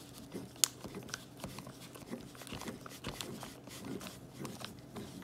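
Spoon stirring a slime mix of white glue, water, glitter and plastic eyeballs, making irregular clicks and scrapes against the container.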